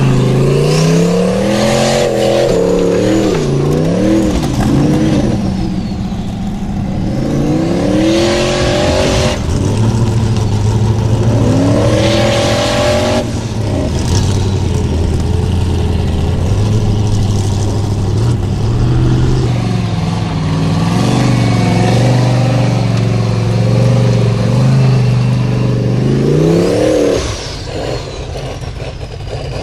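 Formula Offroad unlimited-class buggy's engine revving hard as it claws up a steep dirt hill on paddle tyres. The pitch rises and falls again and again, is held high for long stretches, drops briefly near the end and climbs again.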